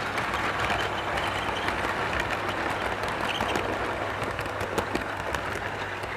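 Model train cars rolling past on the track: a steady rattling rush with many small clicks from the wheels running over the rails and joints.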